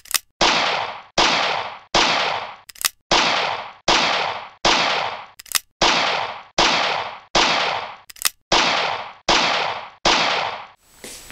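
A steady series of about a dozen gunshot sound effects, one roughly every three quarters of a second, each with a fading tail, and a few short sharp clicks between some of the shots.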